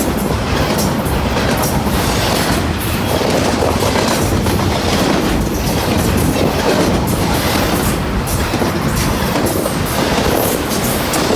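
Freight train cars rolling past: a steady, loud rumble of steel wheels on the rails with repeated clacks.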